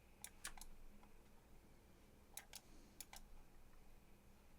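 Faint clicking of a computer mouse: three quick clicks near the start, then a pair of clicks about two and a half seconds in and another pair about three seconds in.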